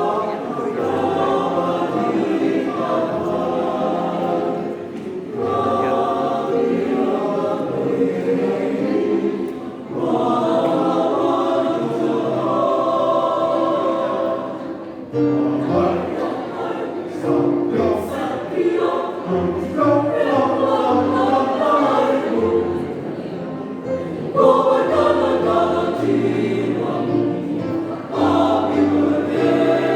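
A choir singing in several parts, with short breaks between phrases.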